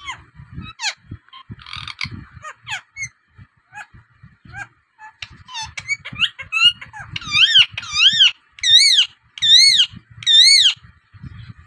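Rose-ringed parakeet calling: a string of short chirps and whistles, then about six loud screeches, each rising and falling in pitch.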